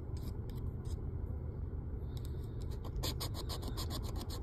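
Scratch-off lottery ticket being scratched: short scraping strokes, a few early and then a quick run of about ten near the end, over a low steady hum.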